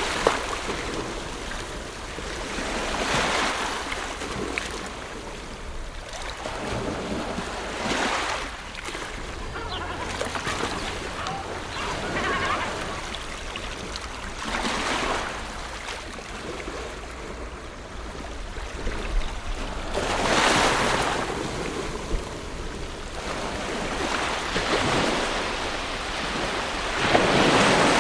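Ocean waves breaking and washing on a shore, each wave swelling and falling away every few seconds, with the largest near the end.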